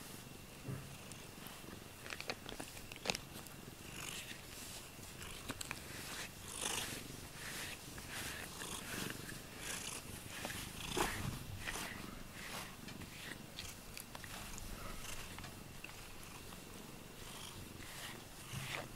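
Cat purring steadily while being brushed, with soft scratchy strokes of a brush through its fur every few seconds.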